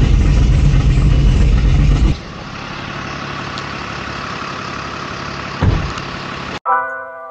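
Cammed Corvette Z06 V8 idling with a choppy, lopey rhythm, heard loud from inside its cabin. After about two seconds it cuts to a quieter, steady engine idle inside a tow truck's cab, with one thump near the end. Piano music comes in just before the end.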